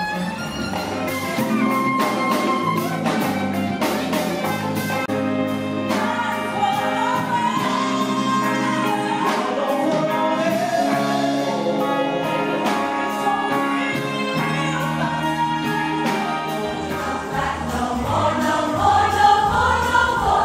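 Live music with singing over instrumental backing, ending with a choir singing.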